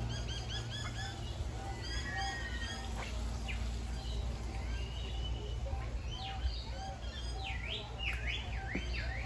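Several birds chirping and calling together. One short note repeats evenly, a little more than once a second, and fast up-and-down calls come near the end, over a steady low hum.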